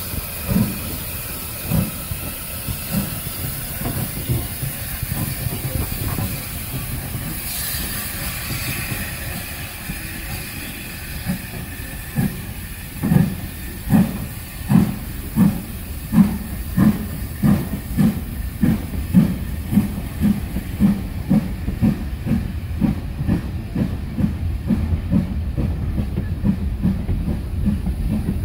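Steam locomotive working, its exhaust beats over a steady hiss of steam: slow beats at first, then after a spell of hiss alone, beats that come steadily faster as it gains speed. A short rush of steam about seven seconds in.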